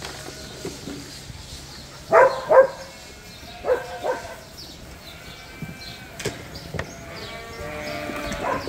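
Hungry bottle-fed lambs bleating at feeding time. Two loud bleats come about two seconds in and two more near four seconds; toward the end several lambs call over one another.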